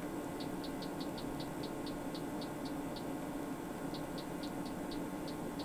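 Rotary knob of a Hewlett Packard 33120A function generator ticking as it is turned step by step, runs of about four or five light ticks a second with a pause about three seconds in. Under it, the steady running of the generator's and oscilloscope's cooling fans.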